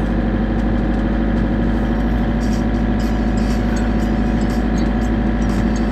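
Motorhome engine running with tyre and road noise, heard from inside the cab while driving at low speed; a steady drone with no change in pitch.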